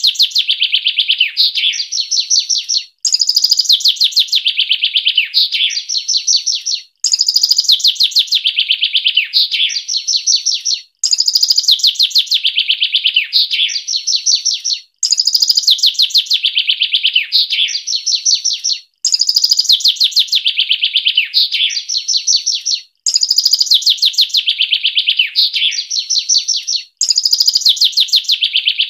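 A small songbird's fast, dense song phrase, a quick run of high notes that slides down in pitch and ends in a short higher flourish. The same recorded phrase is looped every four seconds with a short silence between repeats, as in a masteran recording for tutoring caged songbirds.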